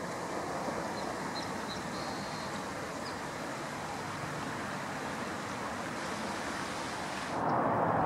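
Steady rushing outdoor background noise, with a few faint, short, high bird chirps in the first few seconds. Near the end the background shifts suddenly to a louder hiss.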